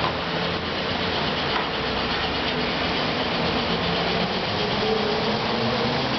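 A ZiU-9 trolleybus approaching and passing close by, its tyres hissing on the wet road and its electric traction motor whining faintly, the whine stronger as it draws near.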